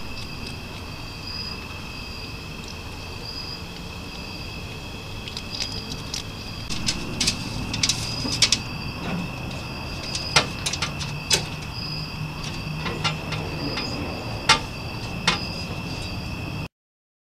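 Night insects trilling steadily, one of them pulsing about once a second, while a skunk caught in a metal box trap shifts about inside it, its moves giving sharp clicks and scrapes from about six seconds in.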